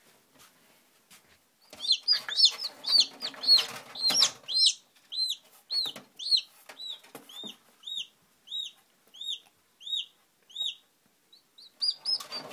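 A hatching chick peeping: short, high, arched peeps, scratchy rustling under the first few, then settling into about one and a half peeps a second. After a pause, a fresh burst of peeps comes near the end.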